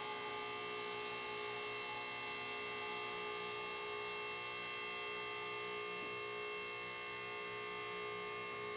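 MaxJax portable two-post car lift's electric hydraulic power unit running with a steady hum while it raises a car.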